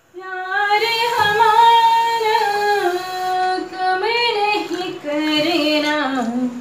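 A woman's voice singing a melody in long held notes that glide between pitches.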